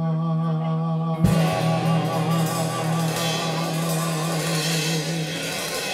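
Live band music: a low note is held, then about a second in the full band comes in on a drum hit with guitar and singing, all held loud until the low note drops out near the end.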